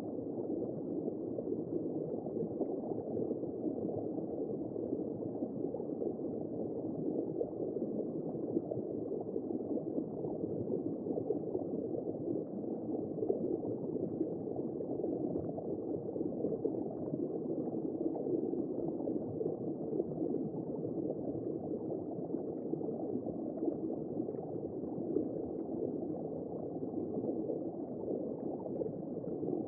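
Womb-sound white noise for soothing babies: a steady, muffled whooshing noise, low and dull with no treble.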